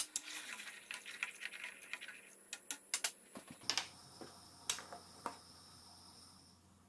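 A large stainless-steel pot of teriyaki sauce boiling: faint, irregular ticks and pops over a low hiss.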